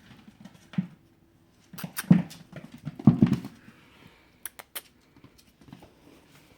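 Prague Ratter puppy at rough play with a tennis ball: irregular scuffling and thumps, with a couple of sharp clicks a little after the middle.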